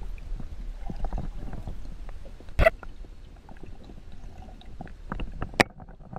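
Muffled underwater sound picked up by a camera held below the surface: a steady low rumble of moving water with scattered small clicks, and two sharp knocks, about two and a half seconds in and again near the end.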